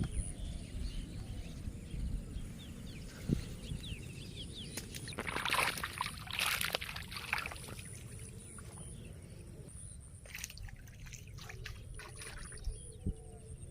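Shallow water trickling and sloshing, with a cluster of splashes in the middle and a few more near the end, over a steady high thin tone.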